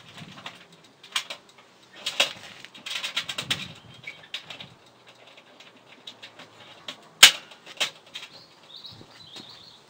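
Salmon fillets being laid and shifted by hand on the metal grill rack of a ProQ bullet smoker: scattered clicks, knocks and rustles, with one sharp click about seven seconds in.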